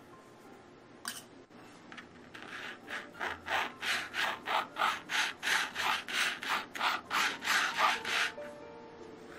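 Rhythmic scraping as a plastic cake scraper is drawn around buttercream frosting while the plastic cake turntable is turned by hand, about three strokes a second. The scraping starts about two seconds in and stops shortly before the end.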